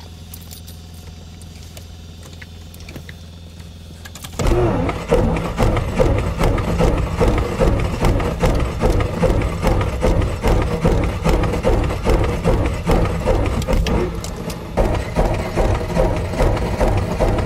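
A steady low hum. Then, about four seconds in, a Piper Cherokee's Lycoming engine is cranked over on the starter, turning over in an even pulsing rhythm without settling into a run: a hard start, with the pilot wary of flooding it.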